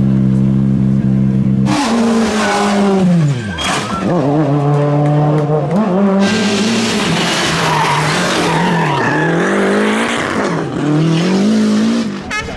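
A steady engine note, then a rally car engine revving hard, its pitch climbing and falling again and again through gear changes and lifts. From about six seconds in, tyres skid loudly as the car slides past.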